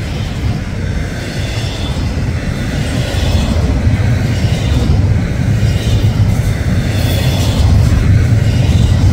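Union Pacific intermodal freight train's double-stack container cars rolling past. Steel wheels on rail make a loud, steady low rumble that grows somewhat louder a few seconds in.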